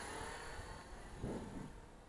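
Faint steady whine of a helicopter flying overhead, fading away, with a brief low rumble about a second in.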